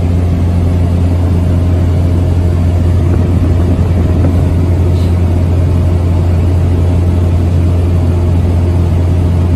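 Steady, loud drone of a small propeller aircraft's engine and propeller, heard from inside the passenger cabin in flight, with a deep hum underneath that does not change.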